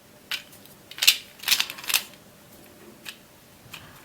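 Back Spin / Magical Dish ball puzzle being turned in the hands: its plastic parts and loose balls click and rattle in short bursts, several close together in the first half, then two fainter clicks near the end.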